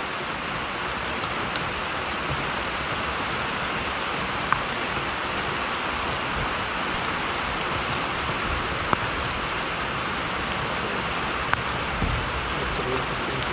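Steady rain falling, an even hiss, with a few sharp single drop hits close by.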